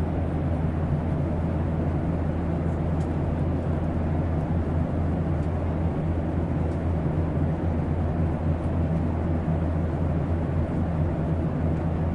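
Airplane ambience: a steady low drone with an even hiss above it, unchanging throughout.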